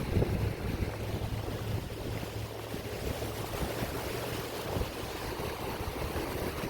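Ocean surf washing on a beach, with wind buffeting the microphone, the wind rumble heaviest in the first couple of seconds.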